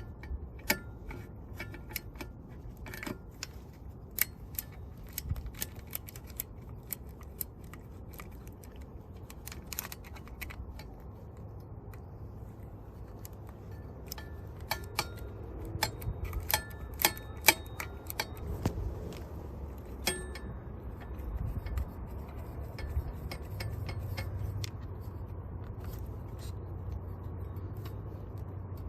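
Hand tools clicking and clinking irregularly against metal parts during motorcycle engine work, over a low steady rumble that grows louder about halfway through.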